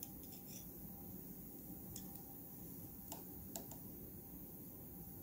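A few light, sharp clicks of a metal spatula being tapped to shake small amounts of ground nutmeg onto weighing paper on a balance, over a faint steady room hum.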